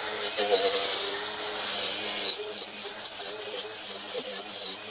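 Small handheld electric sander grinding the old paint off painted plywood siding, a steady high whine. A little past halfway the whine wavers and the sound gets somewhat quieter.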